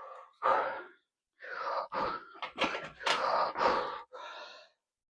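A man's forceful breaths and strained groans while squatting a 100 kg barbell: about six short puffs and grunts in a few seconds.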